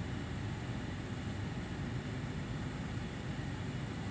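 Steady low rumble of a car engine idling, heard from inside the cabin, with a faint even hiss above it.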